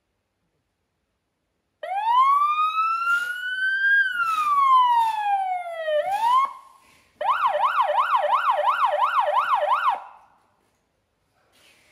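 Electronic siren of an LED emergency-vehicle lightbar, worked from its handheld controller: a wail that rises for about two seconds and falls for two, then a quick rise that cuts off. After a short pause it switches to a fast yelp, sweeping up and down about three times a second for nearly three seconds before stopping.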